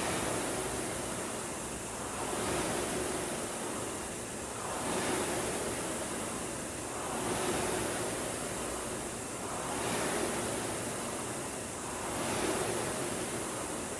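Concept2 indoor rowing machine's air-resistance flywheel whooshing, swelling once with each drive stroke about every two and a half seconds, at a stroke rate of 24 strokes a minute.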